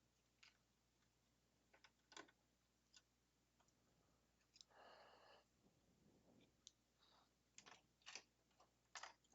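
Faint, scattered clicks and light handling noises from small metal parts, with one short soft rustle about five seconds in: screws being worked loose and the power supply being lifted out of a synthesizer module.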